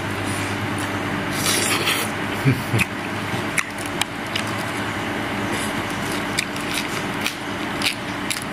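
Small clicks and rustles of food being handled and eaten: fingers in a glass of dipping sauce, napa cabbage leaves crinkling about a second and a half in, then chewing. A steady low hum runs underneath.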